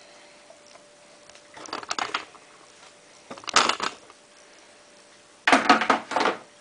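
Hard plastic clattering and knocking in three short bursts, the loudest near the end: the removable detergent drawer of a Samsung washing machine being handled.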